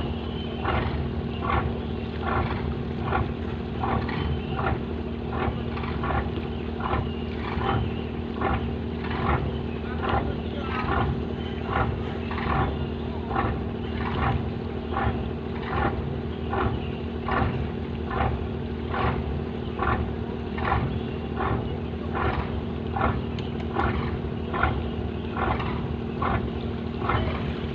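Fishing boat's engine running steadily, a constant hum with a regular beat a little under twice a second.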